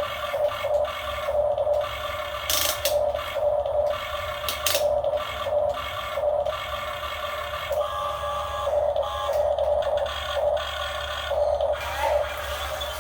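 Radio-controlled model excavator's electric motors whining in short bursts, stopping and starting as the controls are worked, with two sharp clicks a few seconds in.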